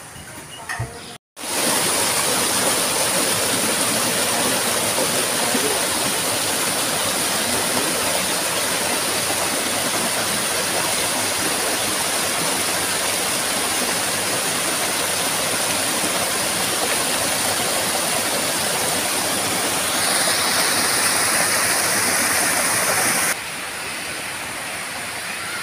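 Water pouring over small stone cascades into a rock pool, a steady, loud rush. It gets brighter about twenty seconds in, then drops to a quieter rush a few seconds later.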